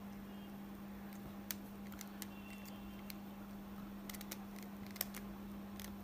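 Faint, scattered plastic clicks of a 3x3 Rubik's cube being turned and handled, over a steady low hum.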